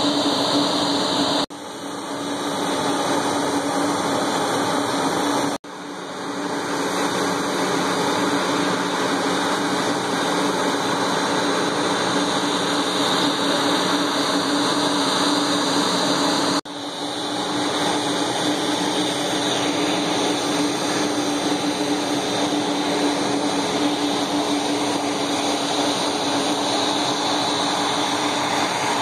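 Steady jet-engine noise from a regional jet's turbofans on the airfield, a loud rushing sound over a constant hum. It cuts out abruptly three times and swells back each time.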